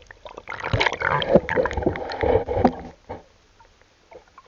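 Muffled water sloshing and knocking against an underwater camera's housing, in a burst of about two and a half seconds starting about half a second in, followed by a few fainter knocks.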